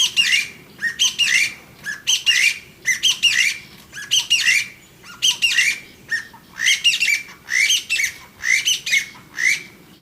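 Chinese bamboo partridge calling: loud, short rising notes repeated in groups of three or four, about one group a second.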